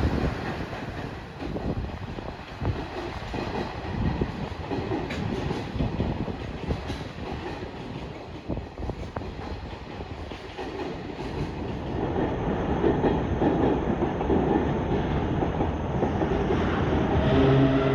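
Freight train of container wagons rolling past, wheels clacking over rail joints. The rolling noise grows louder in the second half, and steady humming tones join near the end.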